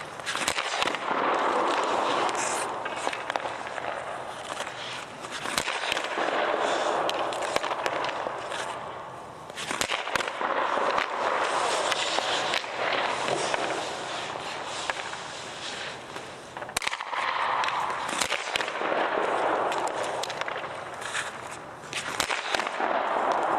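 Ice hockey shooting drill: sharp cracks of sticks striking pucks and pucks hitting the goalie's pads and stick, over repeated swells of scraping on the ice every few seconds.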